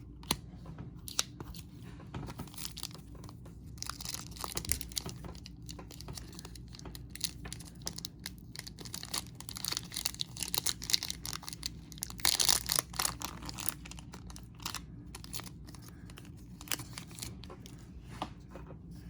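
Baseball card pack wrapper being torn open by hand, with crinkling of the wrapper and small clicks as the cards are handled. The tearing and rustling come louder about four seconds in and again about twelve seconds in.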